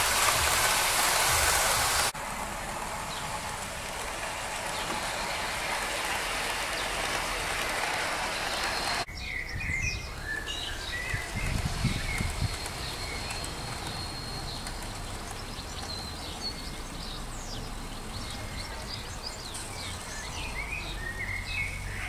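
Hornby OO-gauge model train running along garden track: a steady rushing of wheels on rail that drops in level about two seconds in and stops abruptly after about nine seconds. After that, birds chirping, with a brief low rumble around the middle.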